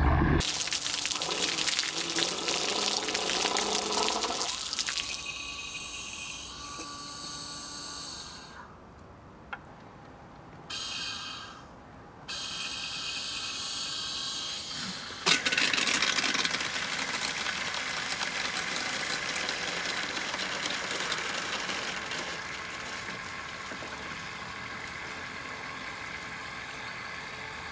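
Water pump with a pink 3D-printed impeller, driven by a 775 DC motor, running. Several high steady tones come first, broken by short drop-outs. About fifteen seconds in, a sudden onset leads into a steady rushing of water pouring from the pump's hose into a plastic jerrycan as it fills, easing slightly later on.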